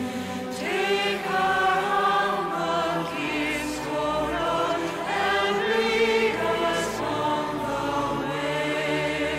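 Music soundtrack of choral singing: voices holding long, wavering notes that shift in pitch every second or two.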